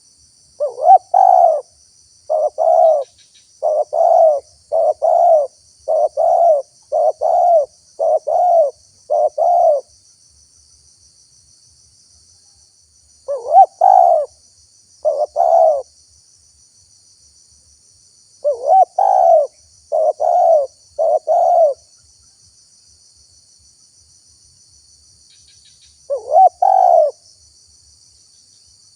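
Spotted dove (tekukur) cooing: a long run of about nine rhythmic coos, then shorter phrases of two to four coos separated by pauses of a few seconds.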